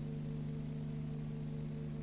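Steady low hum made of a few constant tones, over an even hiss, with nothing else happening: the background noise of a silent cine film transfer.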